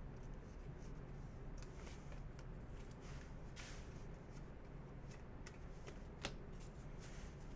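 Baseball trading cards being flipped and slid against one another by hand, faint soft swishes with one sharper click about six seconds in.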